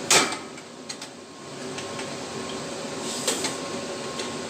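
A loud scraping clunk, then a few light clicks and knocks, as a tightly fitted part of a gas furnace is worked loose by hand. The steady hum of the running furnace is underneath.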